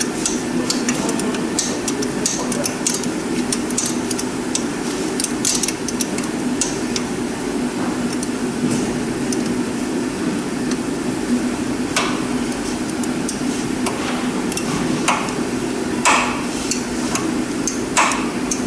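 An 11 mm wrench clicking and clinking on the turbo actuator's mounting bolts as they are undone. Rapid light clicks come in the first few seconds, then a few sharper metallic knocks further on, over a steady hum.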